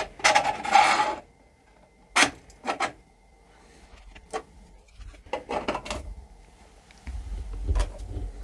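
3D-printed plastic stomp-rocket parts being handled: a scraping slide about a second long at the start, then several light plastic clicks and knocks, then rubbing and a low rumble near the end.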